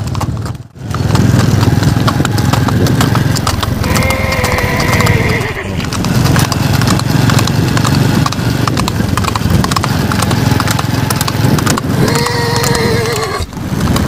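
Horses' hooves clip-clopping on a trail during a group ride. Two drawn-out, wavering calls, each about a second and a half long, come about four seconds in and again near the end.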